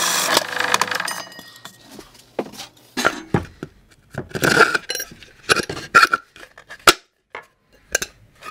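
Bench drill press running with a 35 mm Forstner bit in plywood, stopping about a second in. Then a series of irregular sharp metallic clinks and knocks as a steel threaded rod and flanged nut are fitted into the drilled ply.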